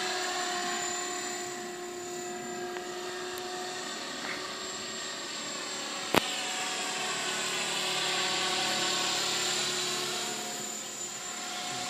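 Electric Mikado Logo 400 RC helicopter flying: steady whine of rotor and motor, its pitch bending up and down as it flies past and turns. A single sharp click about six seconds in.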